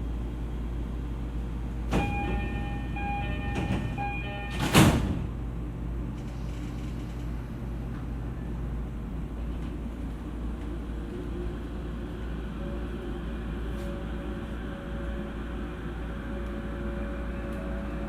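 Inside an E231-series commuter train: a door chime sounds for a couple of seconds, then the sliding doors close with a loud thump. After a pause the train's inverter and traction motors start to whine, the pitch rising near the end as the train pulls away and picks up speed.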